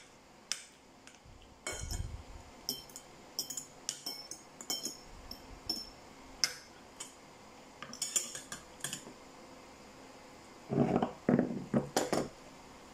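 Metal spoon and fork clinking and scraping against ceramic bowls, in scattered light strikes. Near the end come louder knocks and scrapes as the bowls are moved across the table.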